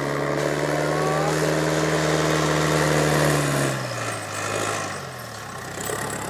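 Tractor engine running as the tractor drives toward and past, growing louder until about three and a half seconds in. Then its pitch drops and it fades as it goes by.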